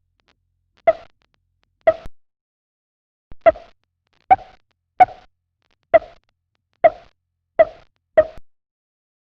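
A series of short cartoon pop sound effects: nine quick plopping pops, each with a brief pitched ring, spaced about a second apart at first and coming faster toward the end.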